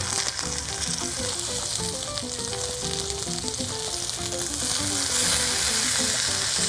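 Red snapper fillets sizzling in hot oil in a cast iron skillet, laid in skin-side down for searing; a steady frying hiss that grows a little louder past the middle as a second fillet goes in.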